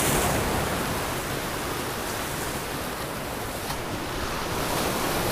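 Surf washing over the rocks of a jetty, a steady rush of breaking water that eases a little midway and swells again near the end.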